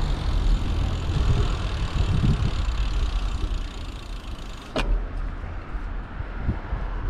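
Wind rumbling on the microphone of a camera on a moving bicycle, with road noise from the tyres on asphalt. A single sharp click comes about five seconds in.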